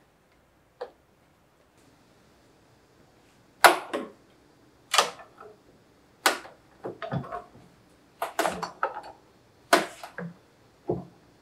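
Bessey pipe clamps on steel pipe clicking and clanking as they are set and tightened against the tabletop panel, metal on metal: a string of sharp separate clicks, one faint near the start and a run of louder ones from about three and a half seconds in.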